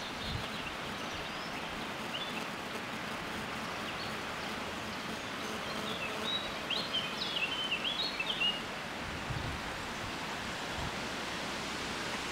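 Steady outdoor noise of wind and rustling leaves, with a small bird chirping a quick run of high notes about six to eight and a half seconds in.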